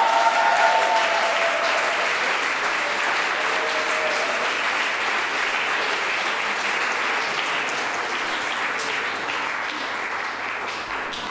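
Audience applauding after a live song, with a few voices over the clapping in the first second or so; the applause slowly dies down toward the end.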